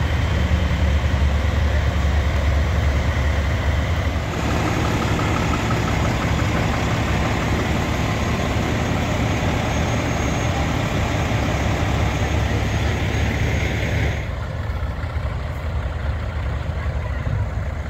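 Semi-truck diesel engines idling: a steady low rumble, its mix changing about four seconds in and again a few seconds before the end.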